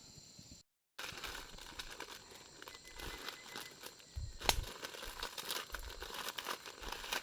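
Dry rustling and crinkling with many small crackles and one sharp snap about four and a half seconds in, following a brief drop to silence just under a second in.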